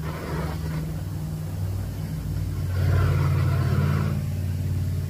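A motor running with a steady low hum that swells louder for a second or so near the middle.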